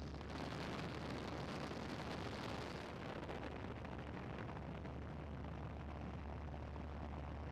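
Steady low drone of a light aircraft's engine with rushing wind noise, heard from inside the cabin; the rushing is a little stronger for the first three seconds or so.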